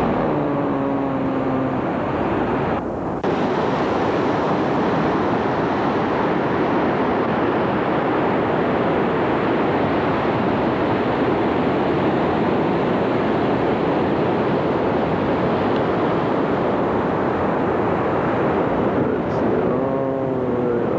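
Ocean surf breaking on the beach: a steady wash of noise. A brief wavering pitched sound comes in at the start and again near the end.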